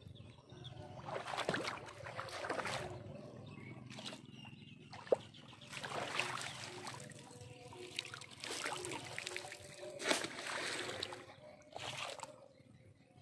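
Water sloshing and splashing in several bursts of a second or two each, with a sharp knock about five seconds in.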